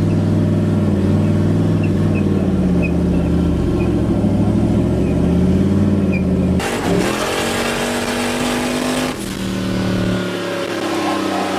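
Pontiac GTO's V8, heard from inside the cabin, running steadily at low speed. About two thirds of the way in the throttle opens and the engine note climbs as the car accelerates, then settles to a lower note near the end.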